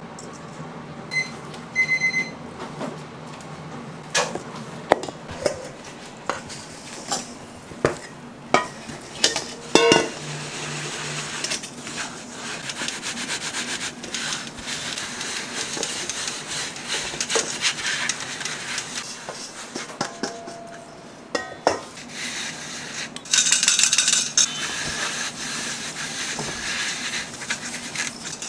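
A metal measuring cup clinks and scrapes against a stainless steel mixing bowl several times. Then sugar and flour pour into the bowl with a steady hiss, and gloved hands rub the powder together with a dry rustle.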